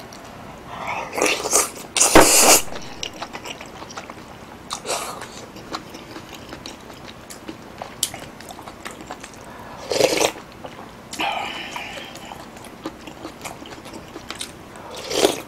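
Close-miked eating sounds: chewing a mouthful of tofu from a squid stew and sipping and slurping the broth off a wooden spoon. There are several short, loud slurps, the loudest about two seconds in, with small mouth clicks between them.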